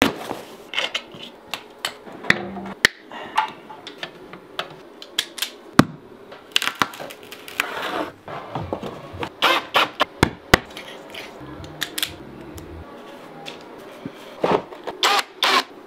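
Irregular clicks, knocks and clattering, with a few short bursts of scraping or rustling noise.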